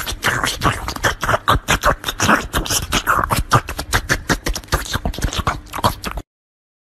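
A cat's tongue licking an ice pop close to the microphone: rapid, wet licking clicks, several a second, stopping abruptly near the end.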